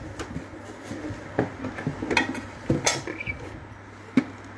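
A handful of scattered knocks and clinks as an electric meat grinder is handled and turned over, the sharpest near the end, over a steady low hum.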